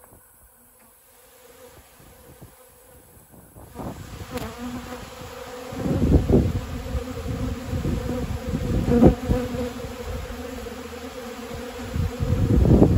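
A swarm of honeybees buzzing as they crowd onto dry pollen-substitute powder, a steady hum that grows much louder about four seconds in. Low rumbles come through from about six seconds on.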